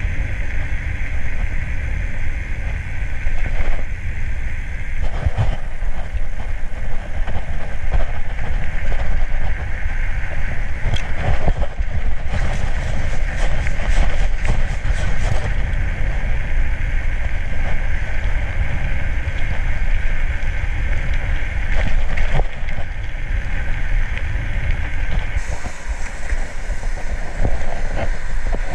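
Wind buffeting the microphone and bicycle tyre and road noise while riding at speed, with a few short knocks from bumps in the road about halfway through.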